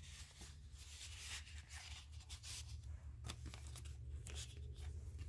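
Paper rustling and crinkling as the pages and a folded paper card of a handmade junk journal are handled, over a low steady hum.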